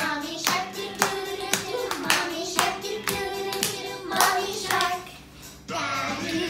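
Children clapping their hands in a steady beat, about two claps a second, with children singing along. The clapping and singing drop away briefly about five seconds in, then start again.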